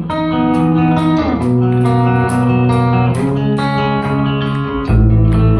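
Live rock band playing with electric guitar and bass over drums, the drums keeping a steady beat of high ticks. No singing.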